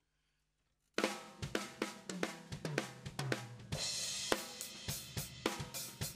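Acoustic drum kit recorded through a compressor with its noise gate raised. After about a second of silence the playing begins: snare, kick and hi-hat hits, tom strokes and a cymbal wash near the middle.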